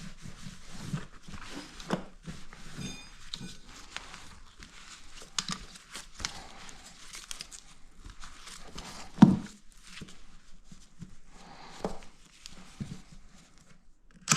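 Scattered light clicks, taps and rustling of hands handling motorcycle parts and screws during disassembly, with one sharp louder knock about nine seconds in.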